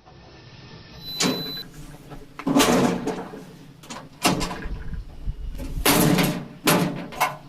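Metal parts of a Frontier OS27 bandsaw mill being handled during a blade change: a series of about six separate knocks and clunks.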